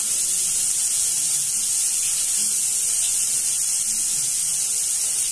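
Chopped onions sizzling in hot oil in a steel kadai: a steady frying hiss as they brown.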